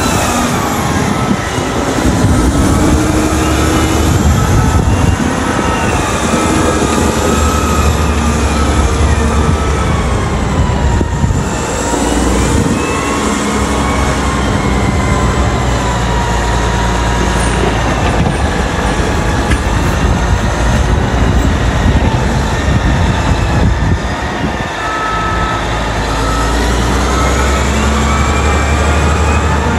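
Caterpillar 990 wheel loader's diesel engine working under load as it lifts and tips its bucket into a truck. The engine note and a high whine rise and fall several times, with the machine's pitch dropping briefly twice.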